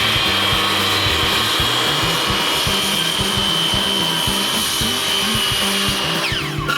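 Electric power tool running steadily with a high whine while working wood, the whine falling away near the end as it winds down. Background music plays underneath.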